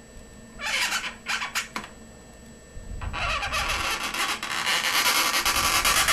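Marker pen rubbing on an inflated latex modelling balloon as eyes are drawn: a few short strokes about a second in, then a longer unbroken stretch from about three seconds in.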